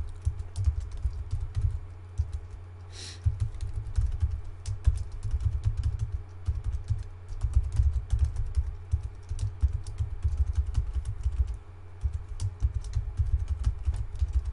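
Typing on a computer keyboard: runs of quick keystrokes, each with a low thud, broken by a couple of short pauses as the typist moves from field to field.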